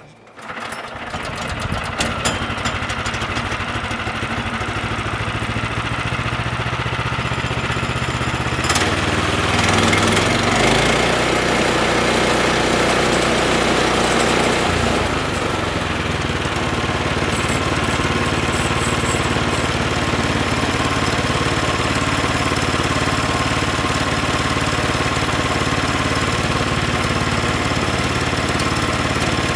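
Woodland 122 portable sawmill's small gas engine comes up to speed and runs steadily as its band blade rips a 1-inch board off a squared log, the engine note shifting under the cutting load around nine and fifteen seconds in.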